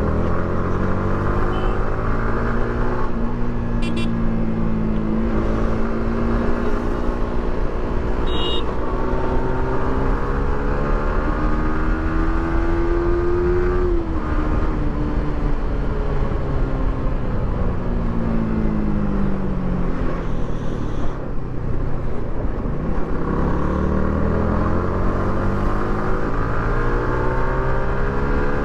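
Yamaha R15 V3's single-cylinder engine through its stock exhaust while riding: the revs climb steadily for about fourteen seconds, drop sharply, fall away, then climb again near the end. A steady low rumble of wind and road runs underneath.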